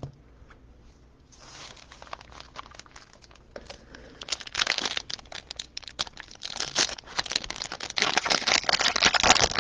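Foil wrapper of a trading card pack being crinkled and torn open, starting softly and growing into dense, loud crackling over the last half.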